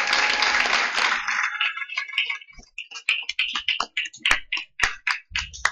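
Audience applause that dies away about a second in, followed by scattered single claps and sharp clicks.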